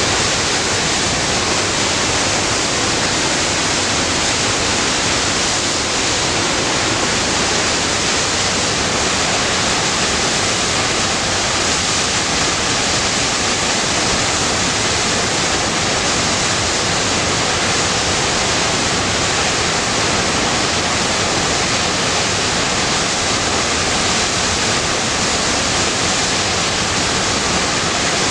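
Roaring River Falls, a waterfall in heavy flow plunging through a narrow granite chute into a pool, rushing with a loud, steady, unbroken roar of water.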